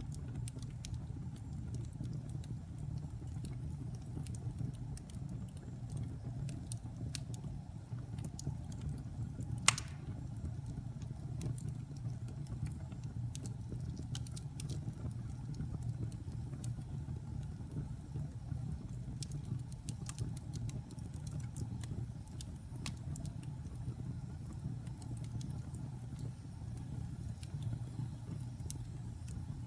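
Wood fire burning in a fireplace: a steady low rumble of flames with scattered crackles, and one louder pop about ten seconds in.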